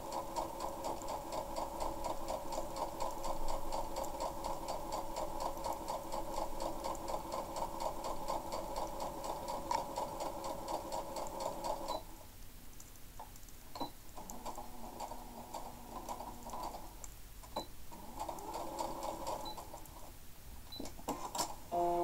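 Compact electric household sewing machine stitching through cloth at a fast, even rate, then stopping abruptly about halfway through. After that come only a few shorter, quieter runs and clicks.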